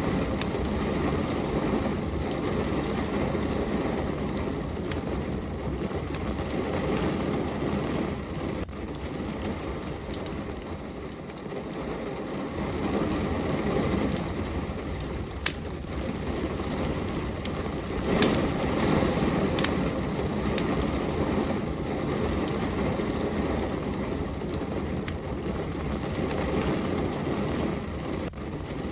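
Steady rain with the occasional sharp crackle and pop of a burning wood fire.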